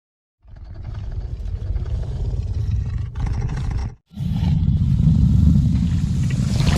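Disney's Carnotaurus dinosaur roar sound effect: a long, deep roar lasting about three and a half seconds, then after a short break a second deep roar begins about four seconds in.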